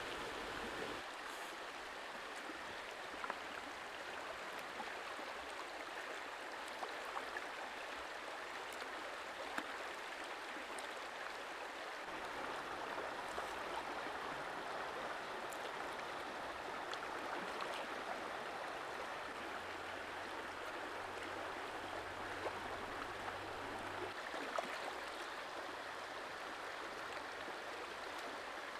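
Shallow rocky stream running steadily over stones, with a few faint ticks now and then.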